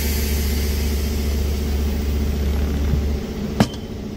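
Steady low rumble of a running engine or motor with a constant hum, which drops away about three seconds in, followed by a single sharp click.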